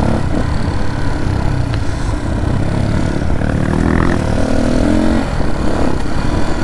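Dirt bike engine running under throttle on a rough dirt trail, heard from the rider's helmet camera. The engine note rises for a moment about halfway through.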